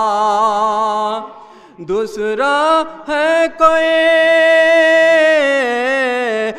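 A man singing devotional verse solo, drawing out long wavering vowels: one held note trails off about a second in, and after a short breath he sings again and holds a long note almost to the end.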